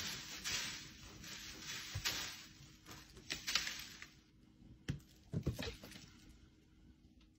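A cat digging and scratching in litter inside an enclosed automatic litter box, soft scraping strokes about twice a second, then a few light knocks about five seconds in as it climbs out.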